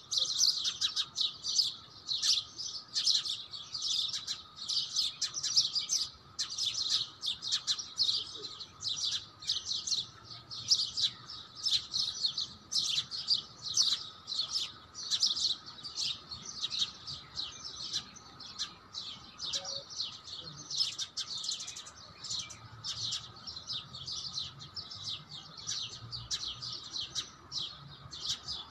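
Many small birds chirping at once in a dense, continuous chorus of short high-pitched chirps, several a second.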